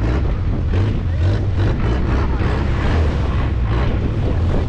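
Wind buffeting the microphone over the steady low drone of a longtail boat's engine, with choppy sea washing against the hull in an irregular rush.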